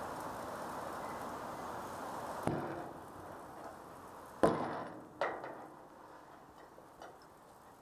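Steel-on-steel clanks as a spud wrench and a crane-hung steel beam knock together: one clank about two and a half seconds in, the loudest about four and a half seconds in, another just after, then a few light ticks. Before the first clank, a steady rushing noise that fades out.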